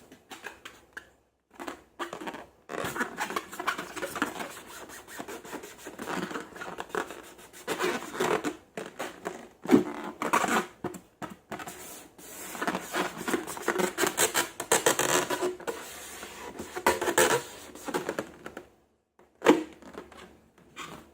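Slime being squeezed and worked by hand: irregular sticky crackles, squelches and clicks, with a sharper snap about ten seconds in and again near the end.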